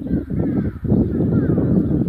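Wind rumbling on the microphone, with faint bird calls over it.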